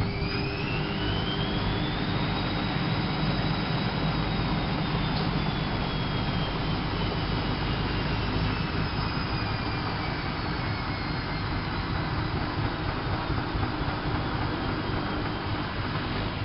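Whirlpool AWO 5346 washing machine spinning up: a motor whine rises in pitch over the first two seconds as the drum speeds up, over a steady low rumble. The whine then holds and slowly falls in pitch.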